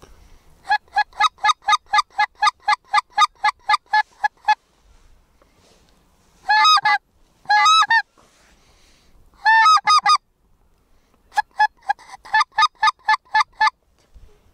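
Goose honking: a fast run of short, loud honks at about five a second, then three longer calls, then another fast run of short honks.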